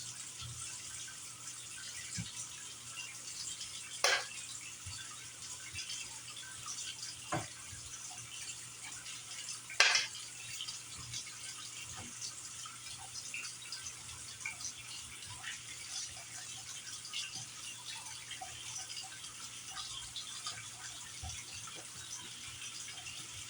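Kitchen work sounds: a steady wash of running or splashing water with scattered light clinks, and two sharper clicks about four and ten seconds in, the second the loudest.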